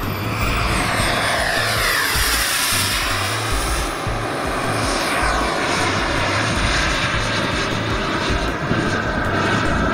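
Model jet's 210-size gas turbine running in flight, a steady whining roar whose pitch falls twice as the jet passes. Background music plays underneath.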